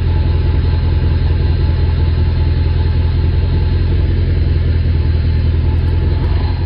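Dodge Charger R/T's V8 engine idling with a steady low rumble.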